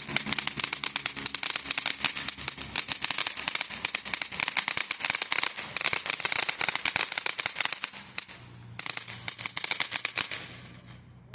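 Consumer firework going off in a dense, rapid crackle of many small pops. It eases briefly about eight seconds in, resumes, and stops about ten and a half seconds in.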